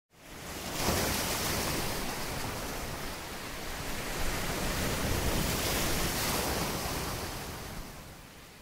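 Ocean surf: waves washing in with a steady hiss, fading in at the start and fading out near the end.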